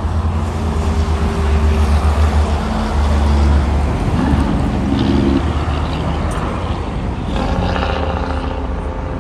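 Diesel tractor-trailer hauling a shipping container drives past with a deep engine rumble, loudest in the first half. The engine note rises briefly about four seconds in, and a different, higher-pitched traffic sound takes over past seven seconds.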